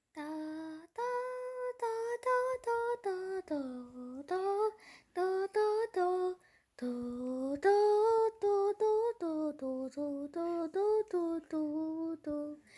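A woman singing a tune unaccompanied, in short syllables on held notes: home-sung stand-in for background music.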